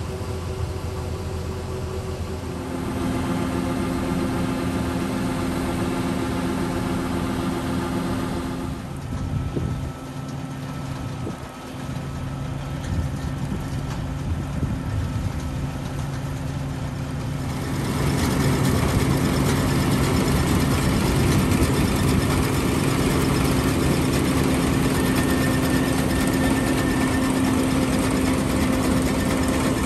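John Deere 9510 combine running steadily while harvesting oats, its engine giving a steady, held tone. It grows louder and fuller a little over halfway through.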